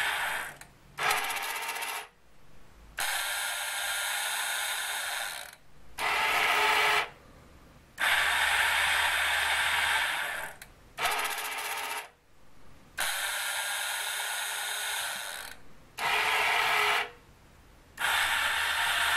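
Small electric motors and gearing of a 1962 model excavator whirring as they hoist, swing and lower its clamshell grab. They run in stretches of one to three seconds, stopping and restarting about eight times as the relay outputs switch each step of the PLC-controlled cycle.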